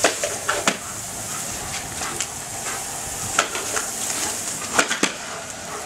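Water spraying from a small lawn sprinkler, a steady hiss, broken by a few short sharp clicks and splashes.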